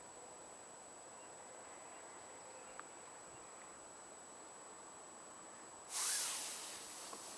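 Faint steady hiss with a thin high whine, then about six seconds in a sudden loud rush of scraping noise on the microphone that fades over about a second, the sound of the handheld camera being handled or rubbed.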